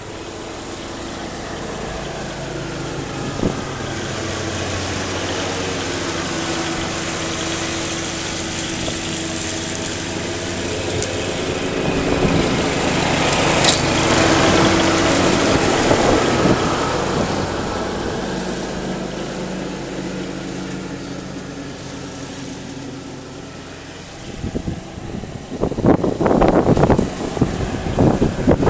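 John Deere L100 riding lawn mower running steadily as it mows, growing louder as it passes close by about halfway through and then fading as it moves away. Near the end, irregular gusts of wind buffet the microphone, as loud as the mower at its closest.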